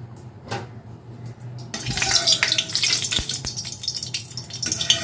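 Hot oil sizzling in a kadai, a dense hiss that starts about two seconds in, after a single knock.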